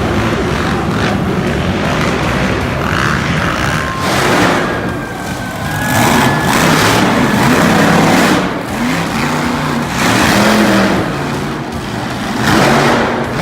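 Monster truck engine revving hard in repeated loud surges, about four of them a few seconds apart, with the pitch rising and falling between them.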